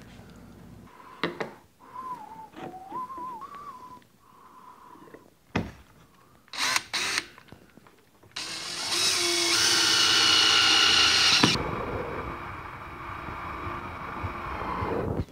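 Cordless drill driving screws into the kayak's plastic deck to fasten a fishfinder ball-mount base. After a few knocks of handling, the motor whines loudly for about three seconds, then runs on quieter and lower for a few more seconds before stopping.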